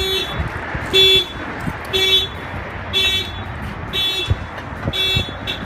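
Autopage 350 aftermarket car alarm going off after a door is opened, sounding a short pulsed tone about once a second.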